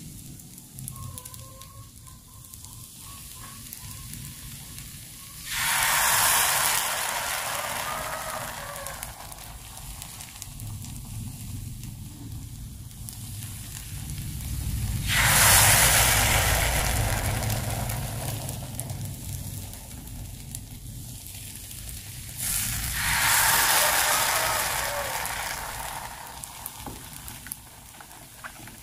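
Rice-flour and coconut-milk surabi batter sizzling as it is ladled into the cups of a hot non-stick mini martabak mold. Three times, each sizzle starts suddenly and fades away over a few seconds.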